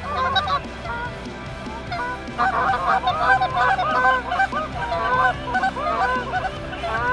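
Many Canada goose honks overlapping, growing denser and louder about two and a half seconds in.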